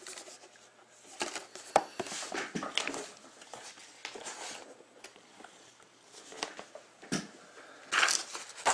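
Shrink-wrapped cardboard boxes of trading cards being moved and restacked by hand: irregular knocks and scrapes of cardboard with short crinkles of the plastic wrap, the loudest knocks about two seconds in, seven seconds in and near the end.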